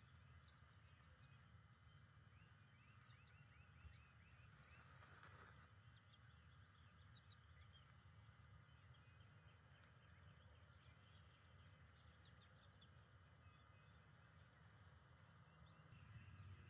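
Near silence: faint outdoor nest-cam ambience with a low steady rumble and many faint, quick bird chirps.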